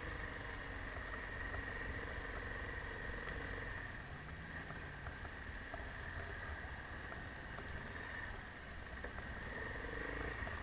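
Enduro motorcycle engine running at low revs while the bike rolls slowly over snow, with a steady high whine. The engine note eases off in the middle and picks up again near the end.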